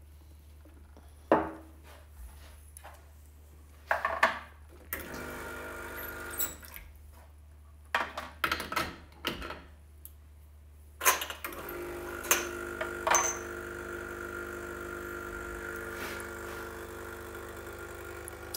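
Clinks and sharp knocks of a portafilter being tamped and handled, then, from about twelve seconds in, the espresso machine's vibration pump humming steadily as a shot is pulled.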